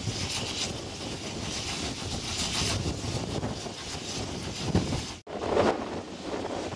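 Steady rumble and wind buffeting the microphone from an open goods wagon coupled behind a working steam locomotive. After an abrupt break about five seconds in, there is a brief louder rumble, still with wind noise.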